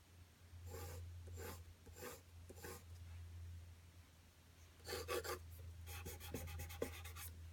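Caran d'Ache 5B graphite pencil scribbling on paper: a few separate strokes, then a quicker run of rapid back-and-forth strokes near the end. A low steady hum runs underneath.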